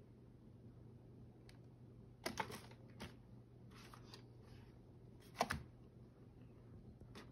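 Computer keyboard keys clicking, a few separate presses: a quick cluster of clicks about two seconds in, one more at three seconds, and a louder, heavier click near five and a half seconds. A low steady hum sits underneath.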